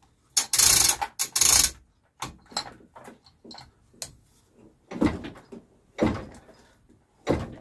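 Chain of a hand chain hoist rattling in two loud bursts near the start, then a series of separate metallic clunks and knocks as the hoisted Riley 9 engine is worked into place against the gearbox.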